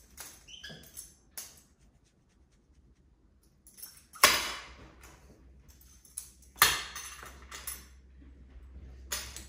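Sharp knocks and clatters of a hose end being handled and knocked about on a hard tiled floor by a capuchin monkey, with lighter clicks in between. Two loud knocks, about four and six and a half seconds in, ring out in the tiled room.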